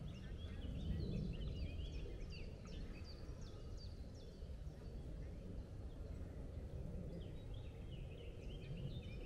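Woodland songbirds singing: quick runs of short, high chirping notes, thickest in the first few seconds and again near the end, over a steady low rumble.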